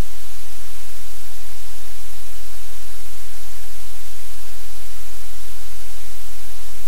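Loud, steady static-like hiss with a low hum beneath it.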